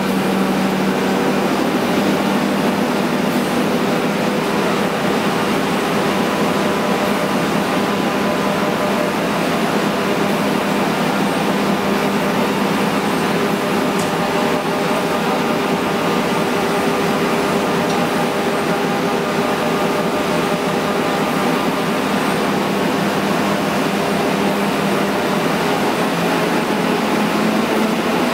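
Multitec G5 variable-repeat web offset press running at a steady speed, a constant mechanical hum with several steady tones over a whirring noise.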